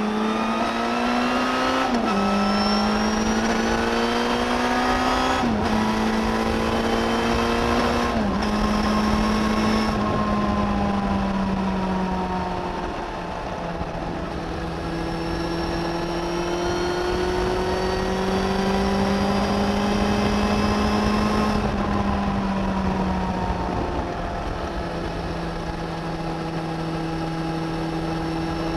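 Suzuki GSX1250FA inline-four engine under way, heard from under the seat. It pulls up through the gears, pitch climbing and dropping sharply at three quick upshifts in the first eight seconds or so, then rises steadily again before easing off about two-thirds of the way through and settling to a steady cruise.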